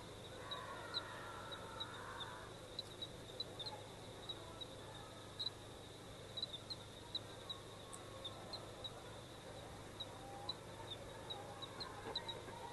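Faint outdoor ambience: a steady high-pitched hum with short, irregular chirps, about two or three a second, and a faint bird-like call in the first couple of seconds.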